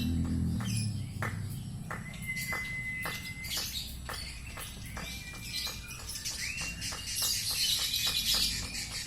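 Lovebird singing a konslet-style song, the unusual voice prized by lovebird keepers: a fast run of clicking chirps, about four or five a second, broken by several long, level whistled notes and a harsh, hissy burst near the end.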